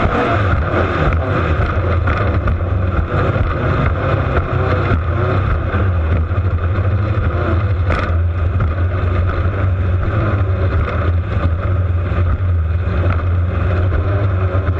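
Ford V8 of a cracker box race boat running hard at speed, a loud steady drone heard right beside the engine, with water and wind noise over it.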